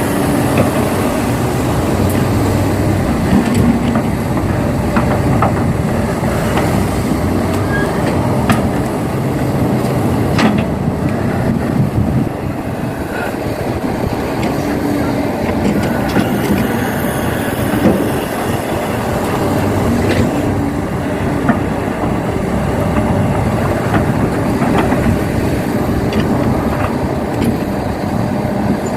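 Heavy diesel machinery running steadily, with a few sharp knocks and clanks, as an excavator works loading earth into a dump truck.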